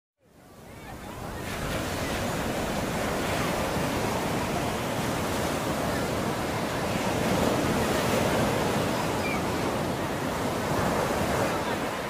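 Strong wind blowing across the microphone: a steady rush with rough low buffeting, fading in over the first second or two.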